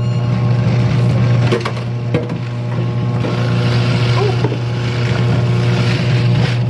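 Electric pasteles machine running with a steady motor hum, with irregular crunching and scraping as produce is pushed against its grater.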